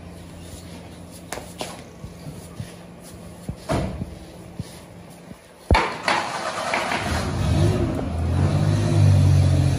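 Dry rice being scooped into a metal pot, the pot knocking sharply a few times. From about six seconds in, a louder low rumble with a wavering tone takes over.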